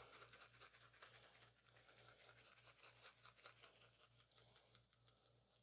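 Near silence, with faint, scattered light ticks of a shaker of salt-and-pepper rub being shaken over a raw brisket.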